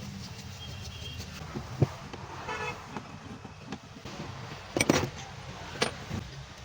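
A few sharp clicks and knocks over a steady low hum, the loudest pair about five seconds in. A brief horn-like toot sounds in the background about two and a half seconds in.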